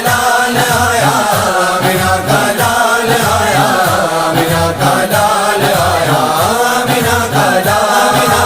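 Urdu devotional naat: voices chanting a drawn-out melody over a low, steady pulsing beat.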